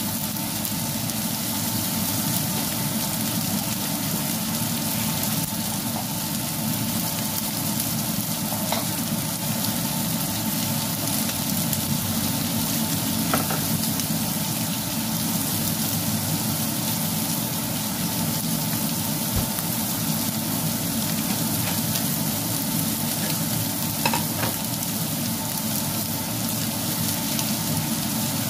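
Lamb chops and garlic cloves frying in a nonstick pan: a steady sizzle with a few sharper pops.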